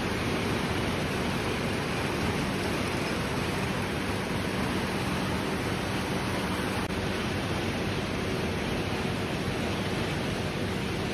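Rubber milling (creper) machines running together: a steady din of geared rollers with water running over them, and a faint constant hum underneath.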